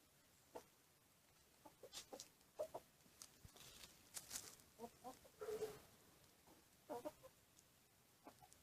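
Faint, short animal calls in scattered clusters over a quiet background, the loudest about five and a half seconds in and again about seven seconds in.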